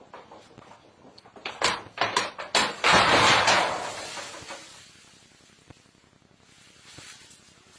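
Several sharp knocks in quick succession, then a loud crash with rustling that lasts about a second and a half and fades.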